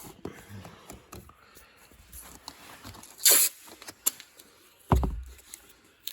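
Handling noises while masking a truck for paint: small clicks and rustles, a short sharp ripping hiss about three seconds in, and a dull thump about five seconds in.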